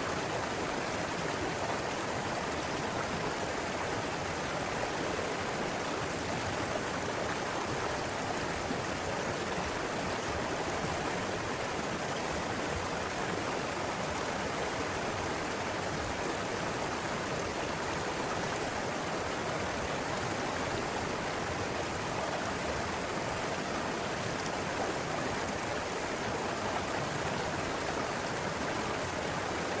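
Steady, even rush of a flowing river, unchanging throughout.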